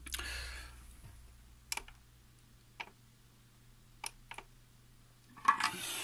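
Small tools being handled on a metal work plate: a soft scrape at first, a few isolated light clicks, then a louder knock and rustle near the end as the soldering iron is taken up.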